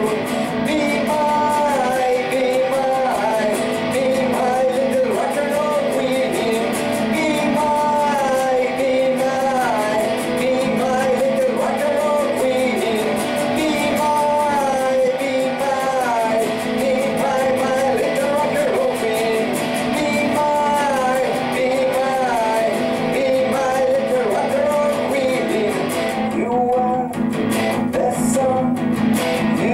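A man singing a heavy-rock song while playing electric guitar, the guitar strummed continuously under the vocal line. The voice pauses briefly near the end while the guitar plays on.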